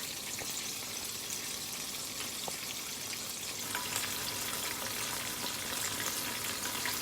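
Double-coated, buttermilk-marinated chicken pieces frying in hot oil: a steady sizzle with small scattered pops.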